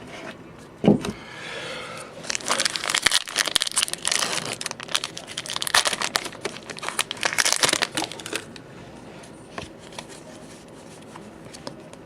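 Foil wrapper of a Pokémon trading card booster pack crinkling and tearing open for several seconds, after a single thump about a second in. It then goes quieter, with a few light ticks.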